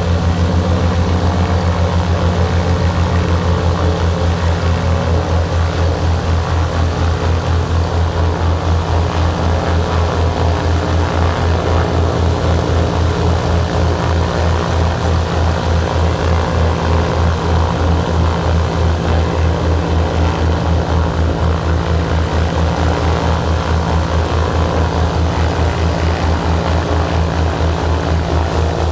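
Both engines of a de Havilland Devon, six-cylinder Gipsy Queen inline piston engines, running steadily on the ground with propellers turning: a loud, deep drone with a regular pulsing throb.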